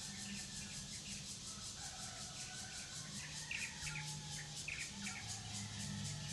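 Outdoor ambience of birds chirping over a steady, finely pulsing insect chorus, with a cluster of short bird chirps a little past the middle.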